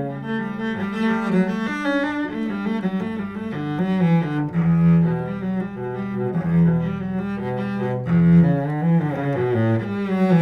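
Full-size Strunal Schönbach 'Bern' concert cello, with a solid spruce top and maple back and strung with Thomastik Alphayue strings, played with the bow. It plays a melodic line of held notes that change pitch every half second to a second, each rich in overtones.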